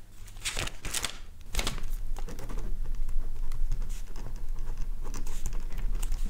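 Typing on a keyboard: irregular clicks of the keys over a low steady hum.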